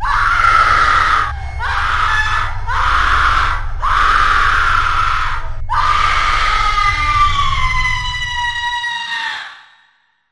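A person screaming in pain: four screams with short breaks between them, then one long scream that slowly falls in pitch and fades out. A low steady drone runs beneath and stops shortly before the last scream dies away.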